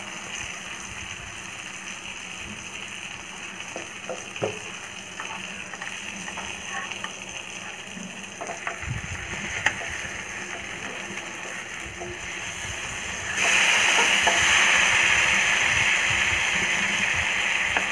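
Tandoori-marinated chicken frying in butter in a pan, a low steady sizzle with a few light clicks and scrapes of a metal spatula. About thirteen seconds in, as the pieces are turned onto their other side, the sizzle suddenly gets much louder and stays loud.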